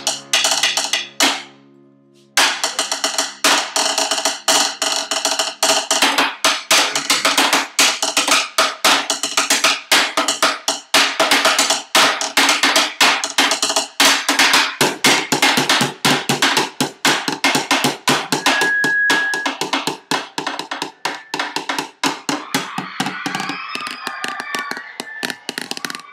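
Acoustic drum kit played in a fast, busy groove of closely packed hits. The playing stops for about a second shortly after the start, then resumes, and thins out near the end.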